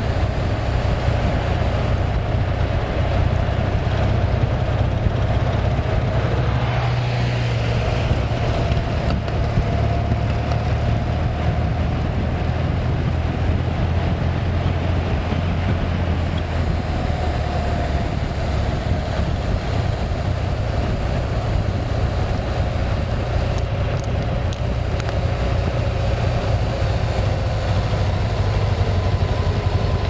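BMW boxer-twin touring motorcycle engine droning steadily at cruising speed, with wind rushing over the bike-mounted microphone.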